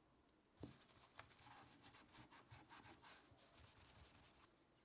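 Gloved hands rubbing a steel socket wrench with a microfiber cloth to degrease it: a soft knock about half a second in, a click, then a run of faint irregular scrubbing strokes that stop near the end.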